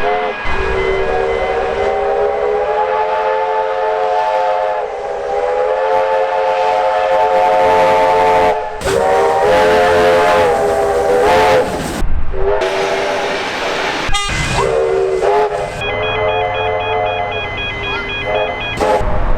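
Train air horn sounding a multi-note chord in long, steady blasts, broken by short gaps; the blasts get shorter near the end.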